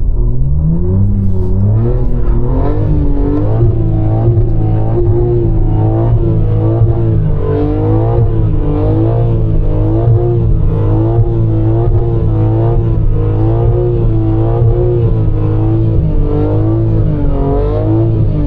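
BMW M3's twin-turbo inline-six revving hard in snow, its revs climbing and then rising and falling over and over, about once a second, as the throttle is worked and the wheels slip. It sounds strained, like it is about to break.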